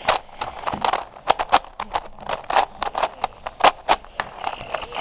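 Plastic pieces of a Meffert's Treasure Chest twisty puzzle clicking and clacking as its layers are turned by hand during a solve, in quick, irregular clicks.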